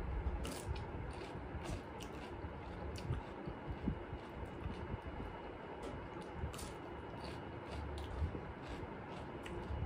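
Close-miked eating sounds: chewing and mouth clicks as a person eats rice by hand, heard as scattered short clicks over a low steady rumble.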